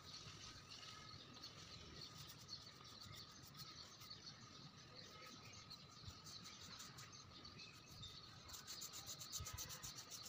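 Faint rubbing of paintbrush bristles working stain into the sanded face of a log slice, with quick scratchy strokes near the end.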